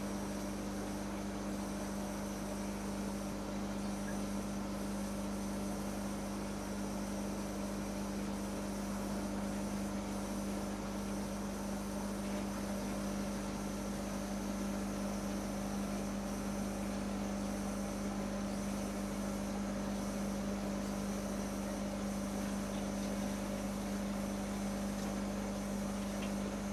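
Steady hum of aquarium equipment running, with a constant low tone and fainter higher tones above it that do not change.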